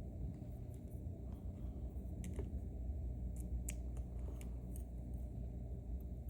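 Irregular light metallic clicks and scrapes of a lock pick working the pins of a Mauer NW4 dimple lock, over a steady low hum.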